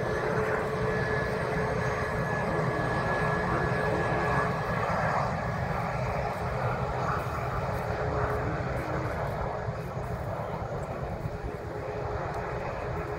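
Jet engines of an Airbus A320-family airliner running as it moves along the runway: a steady rush of engine noise with a high whine held on a constant pitch.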